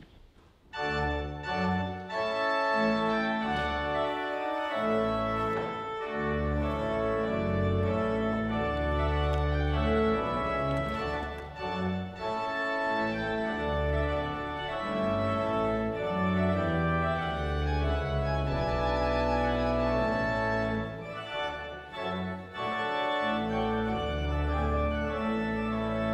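Church organ playing held chords over a moving bass line, coming in about a second in.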